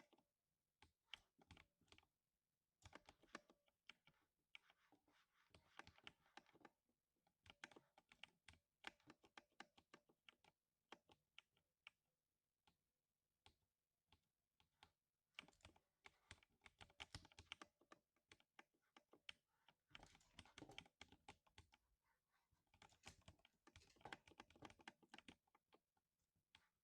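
Typing on a lubed 60% mechanical keyboard, giving a quiet thock on each keystroke. The keys come in quick runs of a few seconds, with brief pauses between them.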